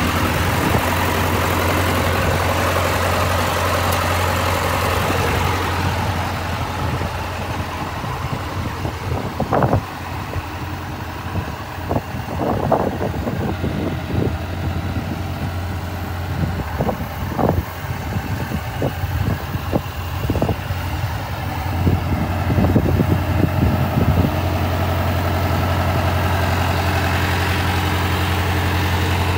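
Engine of a John Deere 6000 sprayer idling with a steady low hum. A run of irregular short knocks comes through the middle stretch.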